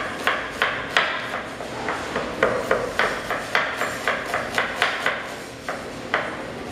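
Chef's knife slicing a red onion into julienne strips, the blade knocking on the cutting board in a quick, slightly uneven run of chops, about two or three a second.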